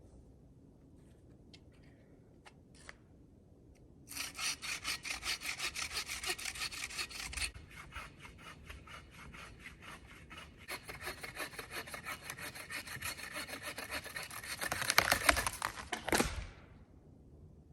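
Hand saw cutting through wood with quick, even back-and-forth strokes, starting about four seconds in, easing off for a few seconds, then picking up again and stopping shortly before the end.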